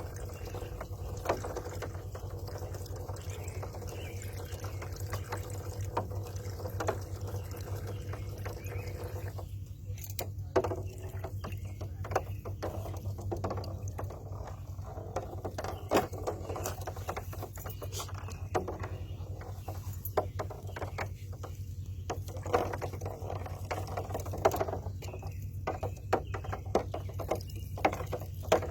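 Water splashing and sloshing in irregular bursts as cats paw at a robotic fish toy swimming in water, over a steady low hum.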